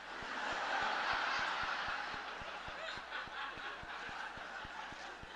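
Large audience laughing, swelling within the first second and then slowly dying away.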